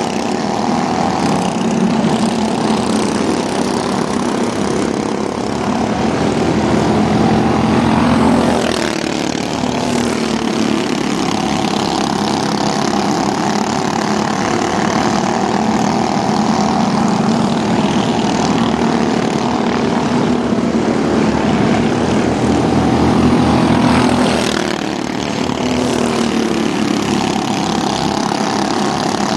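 Engines of two racing mini pickup trucks running hard around an oval, close together. The sound is steady and loud and swells twice, about eight and twenty-four seconds in, as the pitch bends.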